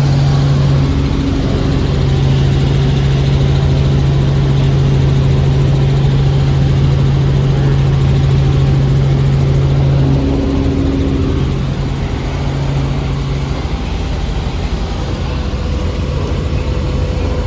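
Helicopter in flight heard from inside the cabin: a loud, steady drone of rotor and engine with a strong low hum that eases slightly after about twelve seconds.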